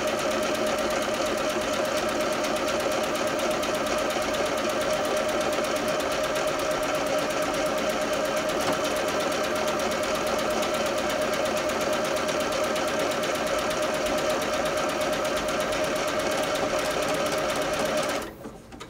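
Janome computerized sewing machine running steadily at speed, sewing an automatic one-step buttonhole with the buttonhole foot. It stops suddenly near the end, when the buttonhole is finished.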